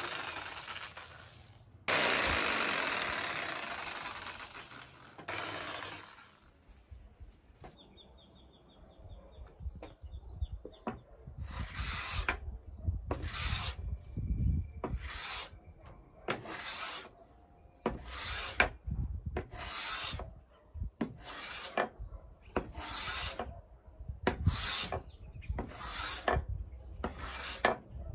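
An electric palm sander runs on a mahogany board, breaking off briefly about two seconds in and stopping about six seconds in. After a pause, a metal bench plane shaves a mahogany strip in a steady run of scraping strokes, about one a second.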